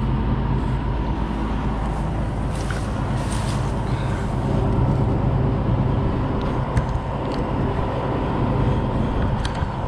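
Crane truck's engine idling steadily with a low hum and a faint high whine, and a few light clinks of chain and hook.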